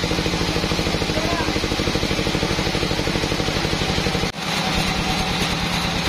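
Band sawmill machinery running: a steady engine-like chugging with fast, even pulses, with a momentary drop about four seconds in.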